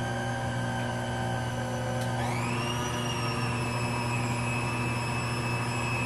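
Nutrimill Artiste stand mixer's motor running as its beater works flour and liquid into a dough: a steady whine over a low hum. About two seconds in the whine rises and settles at a higher pitch as the speed is turned up.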